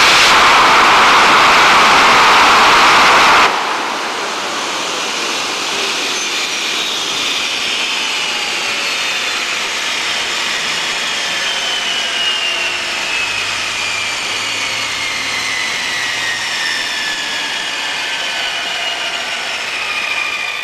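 Epervier drone's jet engine running loud, then cut back sharply about three and a half seconds in; after that a whine falls slowly and steadily in pitch as the turbine spins down.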